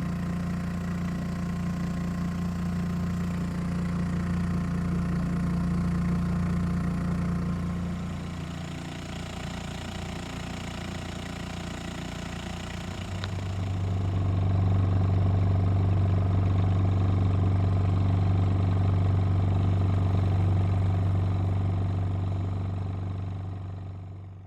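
Small sailboat's outboard motor running steadily under way, an incessant put-put hum. About halfway through the hum drops to a lower pitch and grows louder, then fades out at the end.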